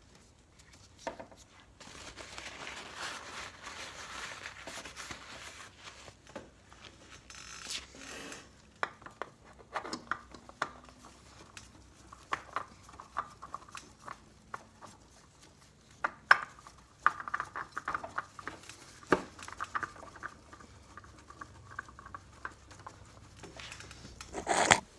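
Hands at work on parts and tools: a stretch of rubbing at first, then scattered metallic clinks, taps and scrapes, one sharp click about two-thirds of the way through.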